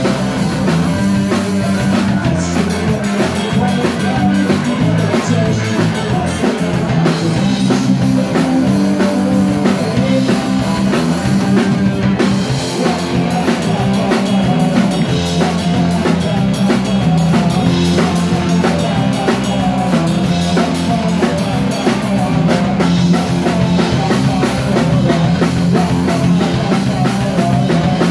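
Live rock band playing: drum kit, bass guitar and electric guitar.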